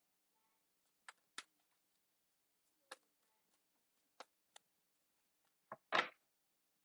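Tarot cards being shuffled and handled by hand: scattered short clicks and snaps of card stock, with a louder card swish near the end.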